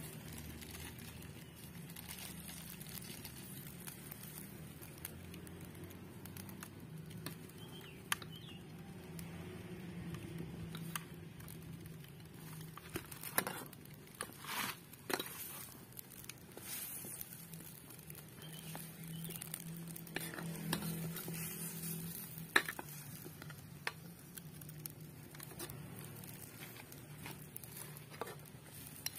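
Metal spatula stirring and scraping in an aluminium pan of coconut-milk fish-head curry cooking over a wood fire, with scattered clinks and taps against the pan and a low steady background.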